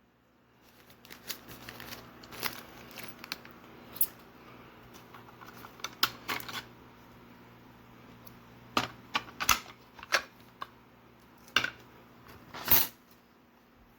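Irregular clicks and taps of small hard objects being handled, over a faint steady hum. The sharpest clicks come in the second half.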